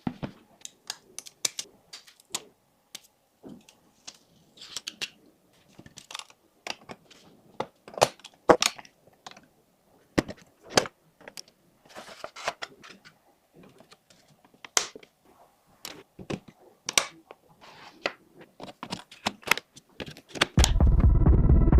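Irregular sharp clicks, taps and short rustles of computer parts and packaging being handled and fitted together during a PC build. Loud electronic music starts near the end.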